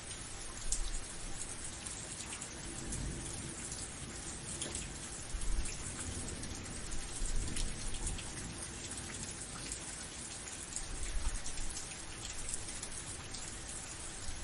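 Steady rain: a dense hiss of falling drops with single drops ticking through it, and a low rumble that swells and fades every few seconds.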